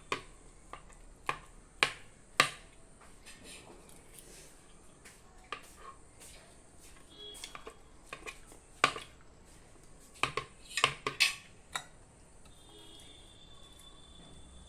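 Scattered sharp clicks and knocks of kitchen utensils and dishes being handled during food preparation, irregular and unevenly spaced, with a quick cluster of them a little past the middle.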